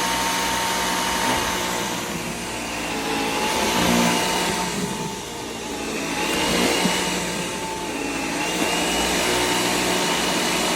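Bissell Air Ram cordless stick vacuum running: a steady motor whine over the rush of air, swelling and dipping in level a few times in the middle.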